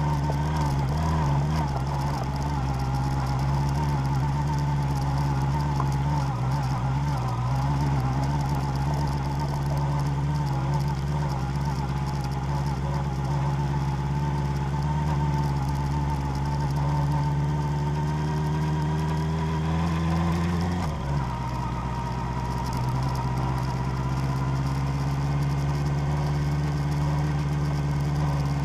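Vehicle engine running steadily while driving offroad. Its pitch climbs slowly, then drops suddenly about three-quarters of the way through and carries on lower.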